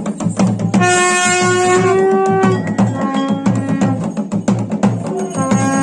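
Music: a melody of long held notes over steady, regular drumbeats.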